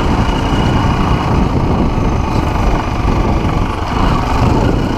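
Off-road motorcycle engine running steadily while the bike rides along a grassy track.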